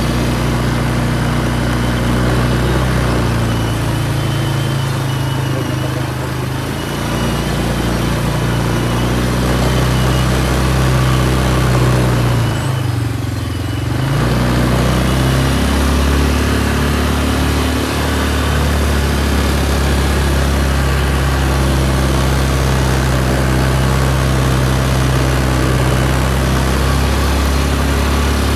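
Quad bike engine running steadily while being ridden. About halfway through, the engine note dips briefly and then climbs back up.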